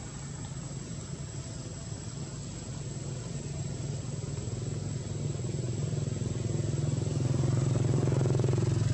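A motor vehicle's engine running: a low steady hum that grows steadily louder, loudest near the end. A thin steady high tone runs alongside.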